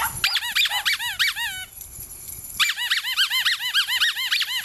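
Small dog yipping in fast runs of high-pitched, squeaky yelps, about six a second, with a short pause a little before the middle.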